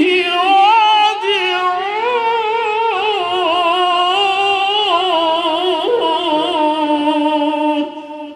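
A man's voice chanting Quran recitation (tilawat) into a microphone, drawing one phrase out in a long melodic line with quick wavering ornaments over a held pitch. It stops near the end.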